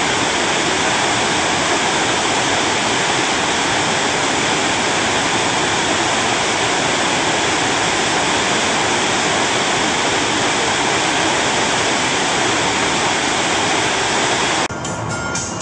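White water of a waterfall and its rapids rushing steadily, a dense unbroken roar of falling and churning water. It cuts off abruptly near the end.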